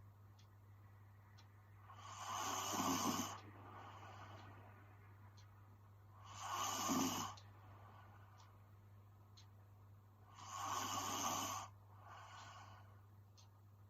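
A young woman snoring in her sleep: three loud snores with a low rattle, about four seconds apart, each followed by a softer breath.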